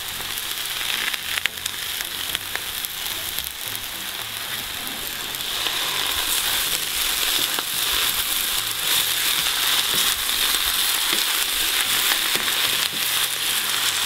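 Shredded cabbage and potatoes sizzling in oil in a cast-iron kazan, stirred with a wooden spatula. The sizzle is a steady hiss with faint crackles, and it grows louder about halfway through as the food is turned.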